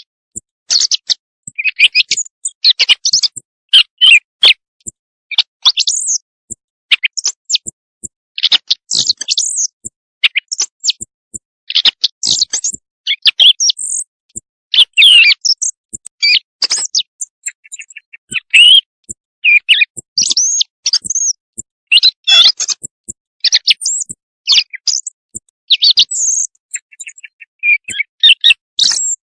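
Looped bird-call recording used as a night hunting lure. A rapid, varied string of high chirps, whistles and squeaky notes, broken by short pauses.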